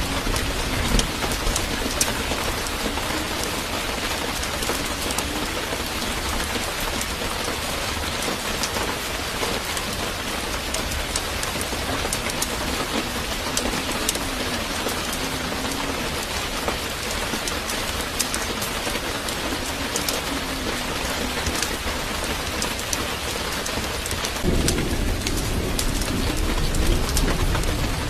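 Steady hiss like falling rain, with scattered faint ticks and a low rumble that rises near the end.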